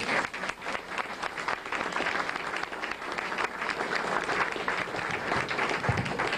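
Audience applauding, a dense steady clatter of many hands clapping.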